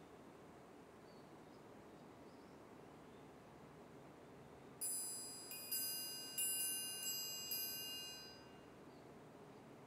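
Small metal chimes struck five times in quick succession about halfway through, each strike adding high, bright ringing tones that fade away within a few seconds.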